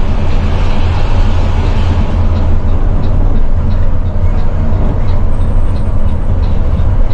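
Intercity bus engine running steadily with a deep drone, mixed with road and wind noise, heard from inside the moving bus.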